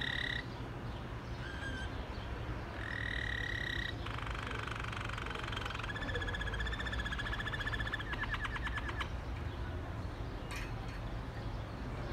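Waterslager (Malinois) canary singing: a long held whistle, then fast rolling, bubbling trills that end in a quick rattling run about nine seconds in, with a steady low hum underneath.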